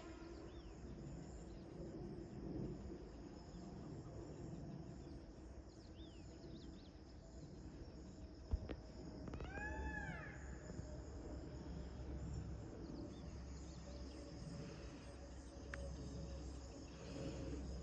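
Faint countryside ambience: a steady high insect drone with a few short chirps. About halfway there is a sharp click, and just after it one animal call that rises and falls over about a second.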